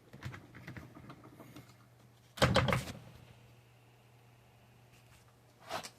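Handling noises: light rustling and clicks, then a loud short knocking clatter about two and a half seconds in and a smaller knock near the end, over a faint steady low hum.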